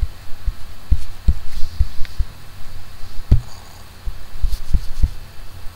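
A string of irregular dull low thumps, about two or three a second, over a steady low hum.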